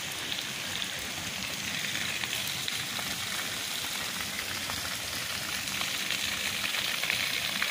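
Steady rain falling on a flooded lawn and pooled standing water: an even hiss scattered with countless small drop ticks.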